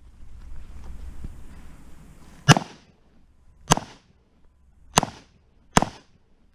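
Four handgun shots fired at an uneven pace about a second apart, starting about two and a half seconds in.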